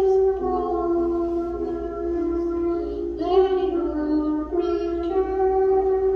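Music with a high voice singing slow, long held notes that slide from one pitch to the next.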